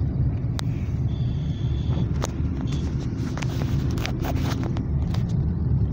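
Steady low rumble of a car driving, heard from inside the cabin, with a scatter of short clicks and scrapes from about two to five seconds in.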